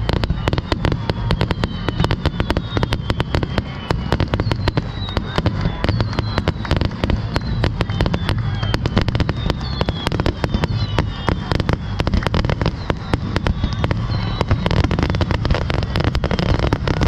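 Fireworks going off in rapid succession: dense bangs and crackles over a continuous low rumble, with thin high whistles that slide down in pitch.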